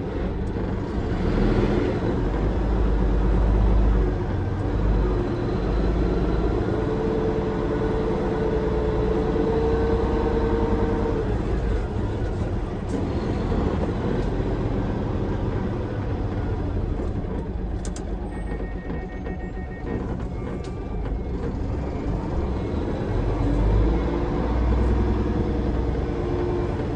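Hino Profia semi-tractor's diesel engine and road noise heard from inside the cab while driving. The engine is under load and gets louder over the first few seconds as the truck pulls away, then holds a steady drone.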